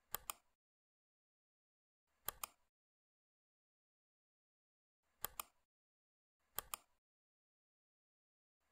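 Computer mouse button clicking four times, a second or two apart, each click a quick double tick of press and release, with near silence between.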